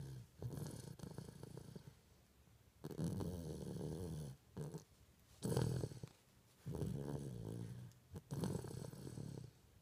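A baby snoring: rhythmic, rasping snores about six times, each lasting a little over a second with short pauses between them.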